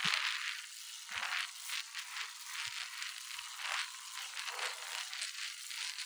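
Surly Long Haul Trucker touring bike rattling as it rolls on asphalt, heard close up at the frame: an uneven clatter of frame, bottle cage and drivetrain over a hiss of tyre noise, thin, with no low rumble.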